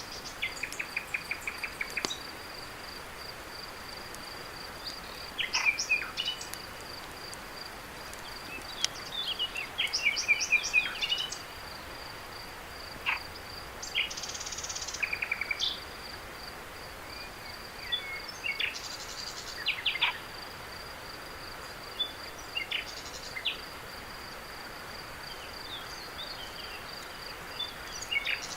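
Crickets chirping in a steady, high-pitched pulsing trill, with short bursts of bird chirps and trills breaking in every few seconds, louder than the crickets, over a soft even hiss.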